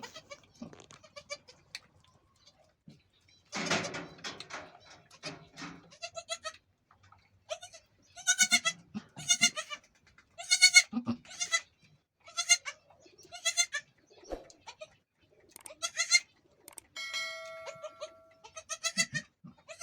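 Goat bleating repeatedly during a birth, about ten short, high, wavering calls, with a rougher, harsher call a few seconds in.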